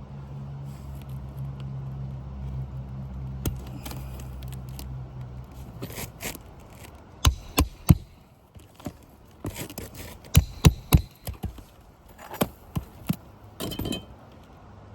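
A low steady hum that stops about six seconds in, then sharp knocks and taps in quick groups of two or three.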